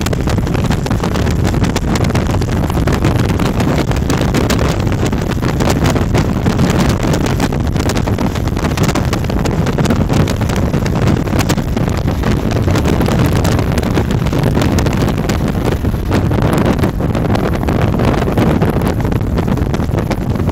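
Strong wind buffeting a phone's microphone: a steady low rumble with frequent crackles.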